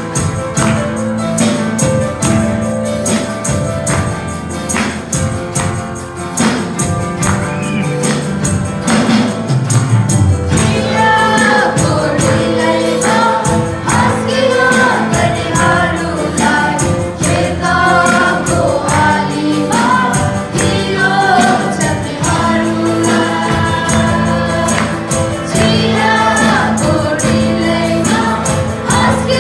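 Live Nepali worship song: a group of singers on microphones singing together over acoustic guitar, electric guitar and drums, with a steady beat. The voices come up strongly about a third of the way in.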